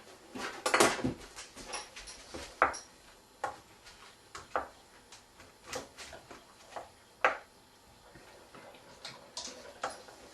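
Metal serving utensils clinking and scraping against a pan and plate as food is dished up: a dozen or so separate knocks at irregular intervals, the loudest about a second in.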